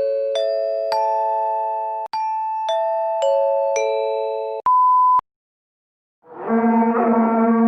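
Sound-effect samples played in a row. First a bright electronic chime jingle, notes struck one after another and ringing on into chords. Then a short pure beep like a censor bleep, a second of silence, and a buzzy held tone that swells in near the end.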